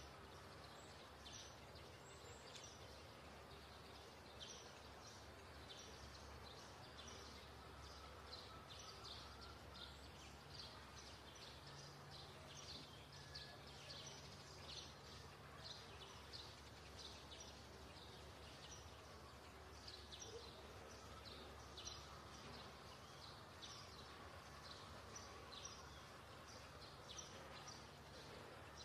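Near silence: faint outdoor background in which a small bird chirps repeatedly, short high chirps about twice a second, over a faint low hum.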